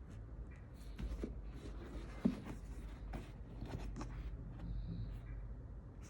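Handling noises from unboxing sneakers: irregular rustling with scattered light clicks and taps, the sharpest knock about two seconds in, over a steady low hum.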